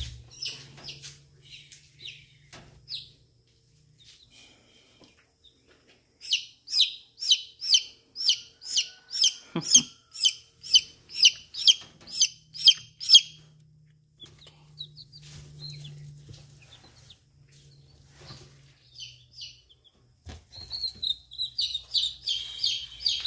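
Chicks a day or two old peeping. Scattered high peeps, then a fast, evenly spaced run of about seventeen loud peeps lasting some seven seconds, more scattered peeps, and another quick run near the end.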